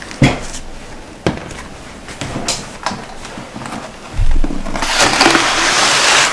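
Plastic plant pots and trays knocking as they are handled on a wooden table, with sharp clicks in the first second or so and a dull thump about four seconds in. Then a plastic seedling cell tray slides across the wooden tabletop with a loud, steady scrape for the last second and a half.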